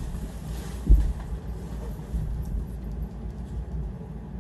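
Things being shifted about by hand: low rumbling handling noise with light rustling, and one thump about a second in.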